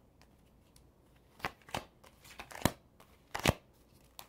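Tarot cards being shuffled and handled: about five short, sharp card snaps with quiet between them, the loudest about two-thirds of the way through.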